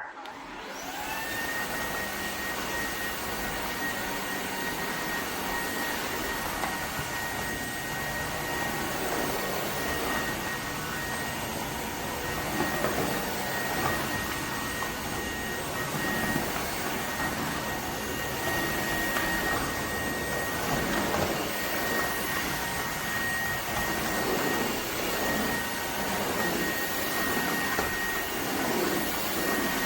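Dreame H12S cordless wet-and-dry vacuum switching on: its motor spins up within the first second to a steady high whine over a dense rushing noise, then runs continuously.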